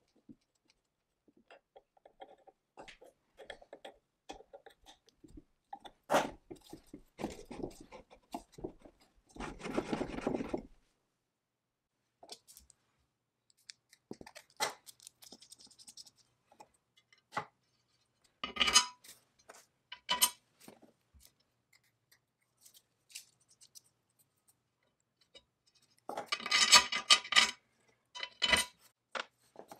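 Small steel parts being handled and fitted onto the cast-iron base of a Foley Automatic Filer saw sharpener: scattered metallic clinks and taps, a short scraping sound about ten seconds in, and denser runs of rattling clinks around two-thirds of the way through and near the end.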